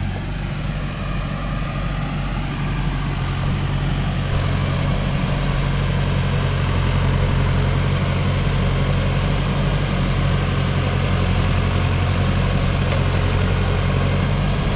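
Diesel engine of a Kioti loader tractor running steadily as it brings a round hay bale up to a flatbed trailer and sets it on the stack. The engine gets a little louder about four seconds in.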